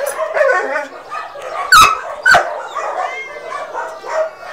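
Dog whining and yelping at a cat, with two sharp, loud barks about two seconds in, half a second apart.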